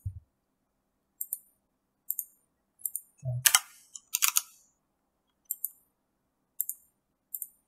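Computer mouse clicks, short sharp ticks about every second, with a louder clatter of keyboard key presses a little before the middle.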